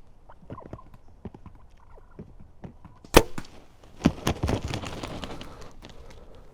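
A bow shot: one sharp crack of the string's release about three seconds in. About a second later comes a rapid flurry of knocks and rustling, typical of a hit turkey thrashing and flapping.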